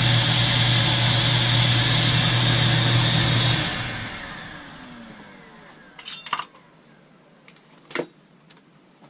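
Hand-held electric grinder grinding metal off the skirt of a chainsaw cylinder. It starts suddenly, runs steadily for about three and a half seconds, then is switched off and winds down with falling pitch. A few light clicks follow.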